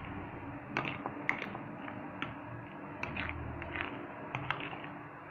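A utensil stirring mashed potatoes in a plate to work in milk, with irregular light clicks and taps against the plate, a few each second.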